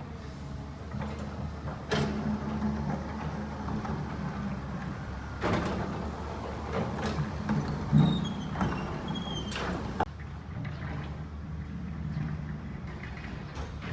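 Excavator's diesel engine running steadily, broken by several sharp knocks and clanks as it digs and handles stones, the loudest about eight seconds in.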